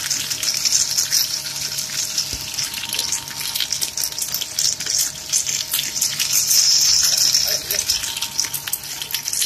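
Kurkure corn-curl extruder running: a steady hiss with constant fine crackling and ticking over a low machine hum.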